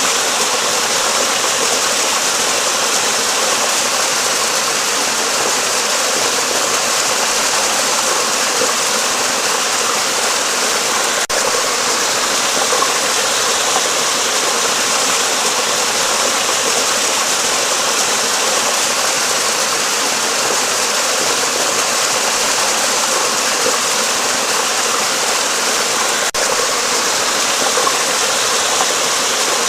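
Flowing water rushing steadily, like a stream or river running over stones, with no change in level.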